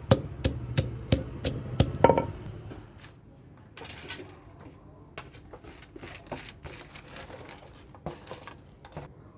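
A pestle pounding papaya salad in a mortar, about three even strokes a second, stopping about two seconds in. After that come scattered lighter knocks and clicks.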